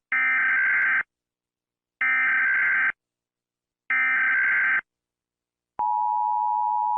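Emergency Alert System broadcast tones: three one-second bursts of warbling data tones, about two seconds apart, and then, about six seconds in, the steady two-tone attention signal begins.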